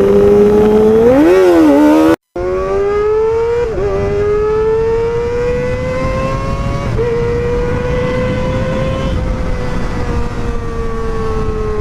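Kawasaki ZX-25R's 250 cc inline-four running at high revs through an aftermarket Pro Liner exhaust: a loud, high, steady engine note that climbs slowly with a couple of brief dips, then eases off near the end. The sound cuts out for an instant about two seconds in.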